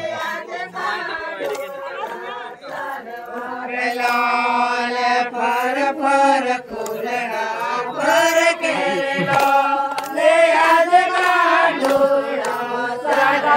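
A group of women singing an Adivasi Navai garba song together, in long held chant-like notes, with sharp hand claps.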